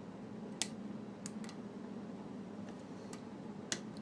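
Small sharp clicks of a lock pick working the pins inside a Schlage Everest lock cylinder during single-pin picking, about five clicks spread irregularly over a few seconds.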